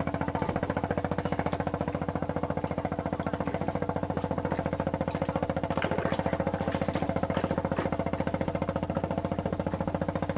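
Boat engine idling with a steady, rapid, even throb.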